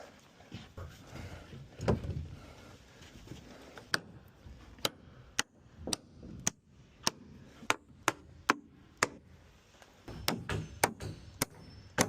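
Sharp, separate wooden knocks and clicks from wall-framing work, about one to two a second from about four seconds in, with a heavier thump about two seconds in.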